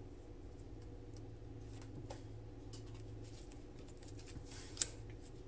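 Faint rustling and light tapping of punched paper circles being shifted and pressed down by fingers on a cardstock base, over a low steady hum. One sharp click near the end.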